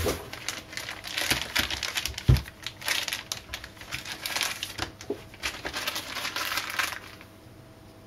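Plastic packaging crinkling and rustling as a hot air rework pencil and its hose are unwrapped, with a dull thump about two seconds in. The crinkling stops about a second before the end.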